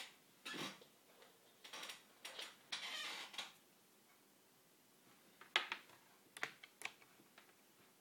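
Rustling and scraping as a laptop power adapter's cable and plug are handled, then several sharp clicks a little over halfway through as the plug is pushed into the laptop's socket.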